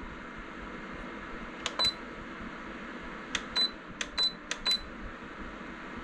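Eigffole electric space heater's touch control panel giving about eight short high beeps as its buttons are pressed, in two clusters, about two seconds in and from three and a half to five seconds in, over the steady whoosh of the heater's fan.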